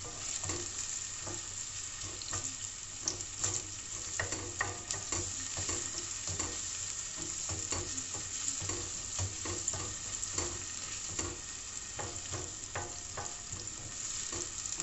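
Sliced onion sizzling in hot oil in a stainless steel pot, stirred with a wooden spoon that scrapes and taps against the pan again and again.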